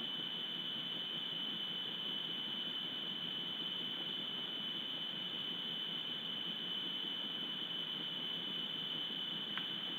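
Steady high-pitched whine over an even hiss: the electronic noise of a wildlife camera's audio, with one faint click near the end.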